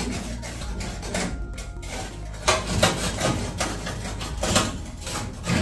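Metal clanks and rattles from a pickup truck's rear step bumper being handled on its mounts, with several sharp knocks, the loudest about two and a half seconds in, again near the three-second mark and near the end.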